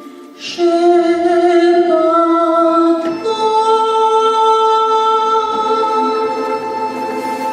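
Sung melody with accompaniment, ending the song: a voice holds one long note, then steps up a little after three seconds in to a second long held note that sustains to the end.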